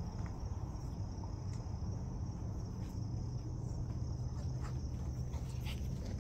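Steady outdoor ambience: a constant high-pitched insect chorus, like crickets, over a low steady rumble, with a few faint clicks.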